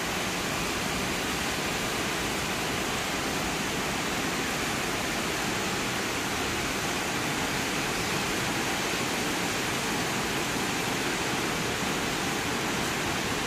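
Steady, even rushing of air from a large CO2 laser cutting machine's fans and air system running.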